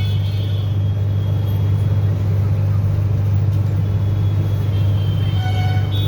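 Steady, loud low rumble of a running vehicle engine, with a horn sounding briefly near the end.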